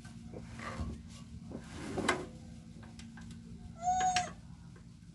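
A few knocks, then about four seconds in a cat meows once, briefly.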